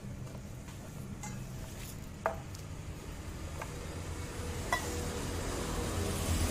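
A few sharp clinks of a glass jar and small stainless-steel pot and cup being set down on concrete, the loudest about two seconds in and another near five seconds. A steady low hum of street traffic runs underneath and grows louder near the end.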